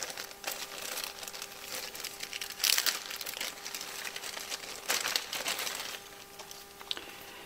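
Clear plastic film crinkling as it is peeled off a new pump gasket by hand. Irregular rustles, with louder crackles about two and three-quarter seconds and five seconds in, dying down near the end.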